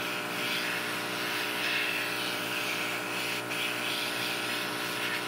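Hot air rework station handpiece blowing steadily, a constant fan whoosh, as it heats a cracked phone touch panel to soften the adhesive holding it.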